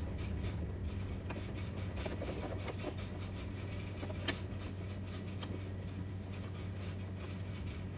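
Steady low workshop hum with scattered light clicks and taps from a quick-release bonnet latch and its hardware being handled and fitted into the bonnet, the two sharpest ticks coming about four and five and a half seconds in.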